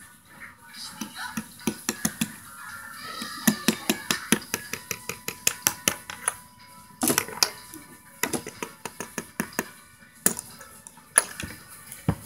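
Plastic Lego pieces clicking and clattering as they are handled on a tabletop, a quick run of sharp clicks that gets busier a few seconds in.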